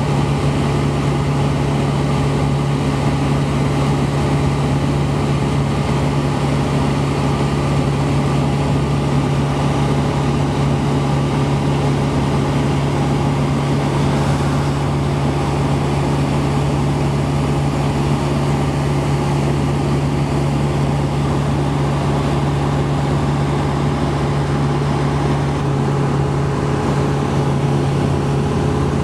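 Ultralight aircraft's engine and propeller droning steadily at cruise, recorded on board, with a constant low hum and no change in pitch.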